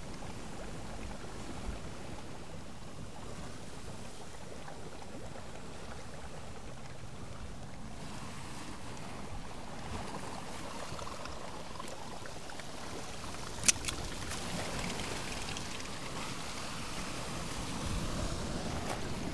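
Sea water washing and lapping steadily against shore rocks. About two-thirds of the way through there is one sharp click, followed by a smaller one.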